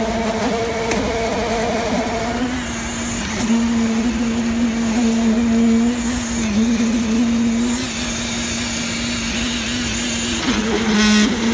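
A concrete mixer machine's engine running steadily with a constant hum, with a brief rattling burst near the end.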